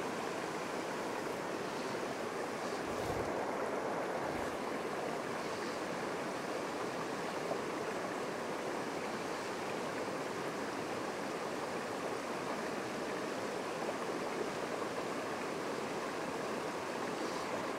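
Small mountain stream running over rocks: a steady rush of shallow water through a riffle.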